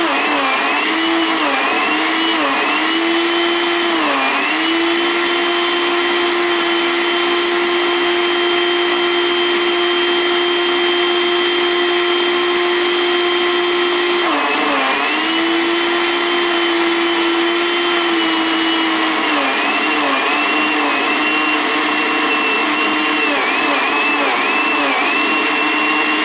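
Blender motor running steadily at speed, churning whipping cream that is thickening on its way to butter. Its pitch dips briefly several times: near the start, around the middle, and repeatedly in the last third.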